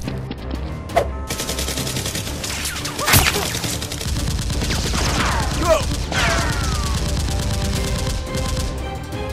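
Rapid automatic gunfire sound effects, a dense run of shots with one louder shot about three seconds in, over background music. Several falling whistle-like glides come in around the middle.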